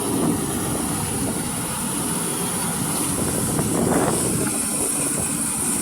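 Maxxi J rice combine harvester running steadily while harvesting: a dense low rumble with a thin, steady high whine over it, swelling briefly about four seconds in.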